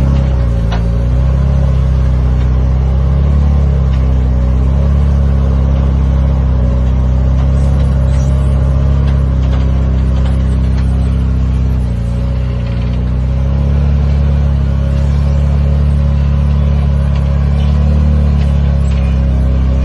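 An off-road vehicle's engine running hard under steady load, its pitch dipping and coming back up near the start and again about twelve seconds in as the throttle changes.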